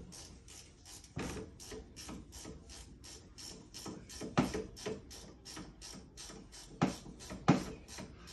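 Steady mechanical clicking, about three clicks a second, with a few louder knocks in the middle and near the end.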